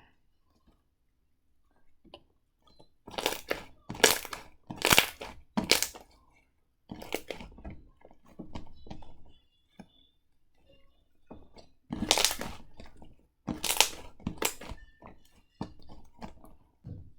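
Slime being squeezed and pressed by hand: a run of short, noisy crackles in groups, loudest a few seconds in and again just past the middle.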